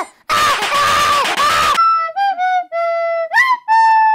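A child's loud wailing cry, then a recorder played as a slow, halting tune of separate held notes, one of them sliding up in pitch.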